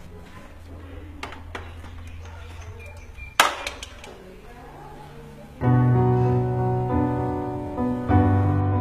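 A quiet stretch with a low hum and a few light knocks, one sharp knock about three and a half seconds in. Then piano music with sustained chords comes in loudly about five and a half seconds in.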